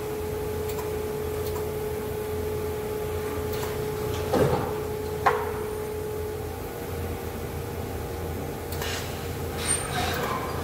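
Steady hum of a metal fabrication shop, with a steady tone that stops a little past halfway. Two sharp metal knocks come in the middle, and lighter clanks near the end, as stainless steel sheet is handled on the welding table.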